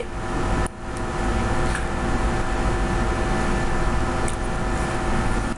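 Steady machine hum made of several constant tones over a low rumble, with a few faint clicks.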